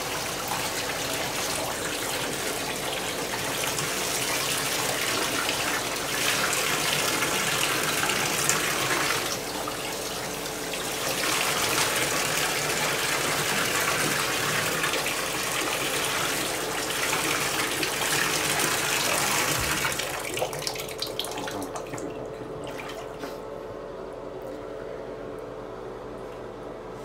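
Water running into a bathtub, dying away about twenty seconds in, with a steady hum underneath.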